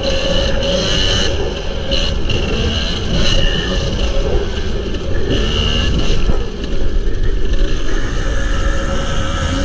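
Kawasaki KDX250 two-stroke single-cylinder dirt bike engine running hard under way. The note rises and drops off several times as the throttle is opened and closed and gears are changed.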